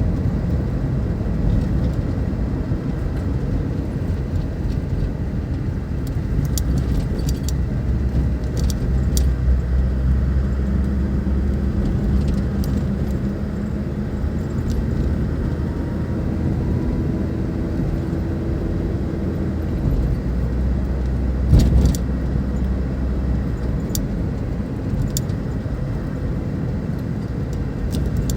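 A car engine idling steadily, with scattered light metallic clicks and clinks and one louder knock later on.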